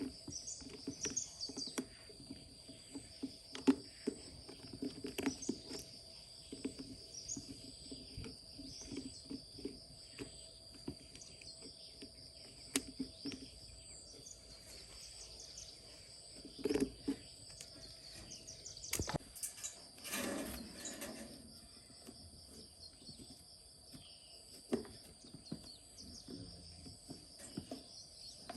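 Insects trilling steadily at a high pitch with occasional bird chirps, over scattered knocks and clicks from hands working on something close by, and a short scraping noise about two-thirds of the way through.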